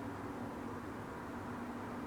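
Steady low hum with a soft hiss, room tone with no keystrokes.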